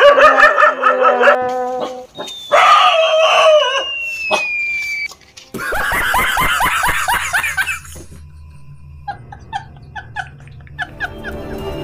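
A dog barking and yelping in the first few seconds, then a man laughing hard from about halfway through, trailing off into quieter gasping laughs.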